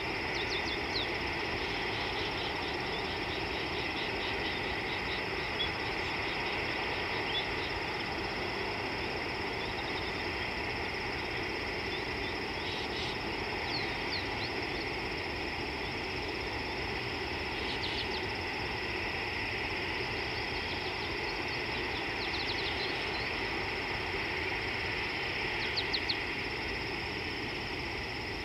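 Steady outdoor ambience at an African watering hole: a constant high-pitched chorus over a low rumble, with short series of high chirps every few seconds.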